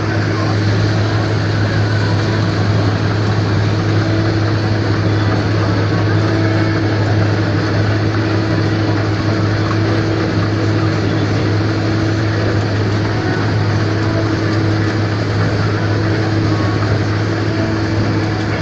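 Combine harvester running steadily while harvesting rapeseed: a constant low drone with a steady higher hum over an even mechanical noise.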